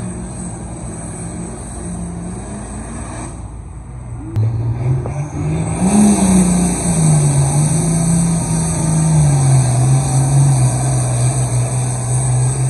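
Diesel engines of pulling tractors working under full load as they drag weight-transfer sleds. A more distant engine runs first. From about four seconds in, a louder engine takes over, revs up and then settles into a steady, heavy drone as the tractor pulls the sled.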